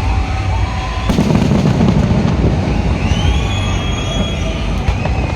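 Fireworks going off: a sharp bang about a second in, followed by a heavy low rumble of bursts.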